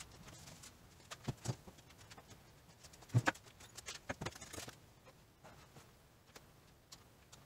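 A few light knocks and clatters as a metal folding chair is set down on a concrete floor and a plastic jug is put on it. The loudest knock comes about three seconds in, with a short cluster of clatter just after.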